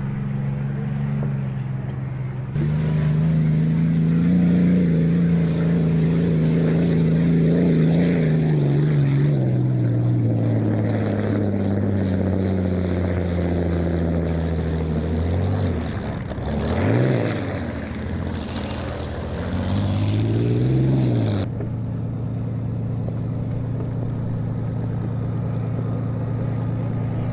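Vintage unlimited hydroplane's piston aircraft engine running steadily, its pitch sagging slowly, then revved up twice in quick blips. The sound jumps abruptly in level a couple of times, as at cuts between shots.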